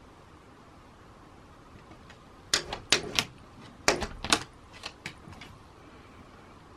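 A quick burst of about ten sharp taps and clicks in two clusters near the middle, with a few fainter ones trailing off, over faint steady room noise.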